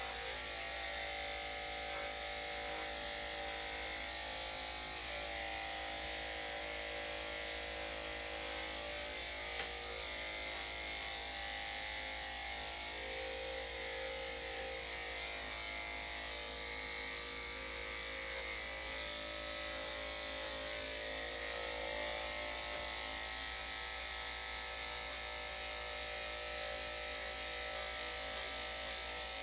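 Electric dog grooming clippers running steadily as they shave a dog's coat, a constant hum with no breaks.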